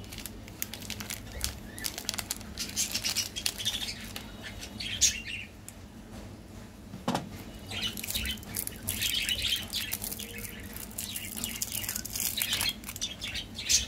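Close-miked eating of sweets and snacks: rapid crackling, clicking mouth and chewing sounds in two dense spells, with a dull thump between them.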